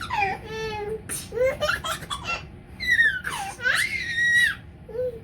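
A young child laughing and squealing in several high-pitched bursts, the pitch sliding up and down.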